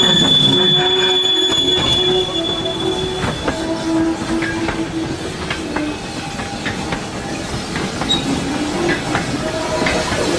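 Railway wagons rolling past at close range, their wheels squealing on the rails in steady high tones that fade away about a third of the way through, with clicks from the wheels running over rail joints.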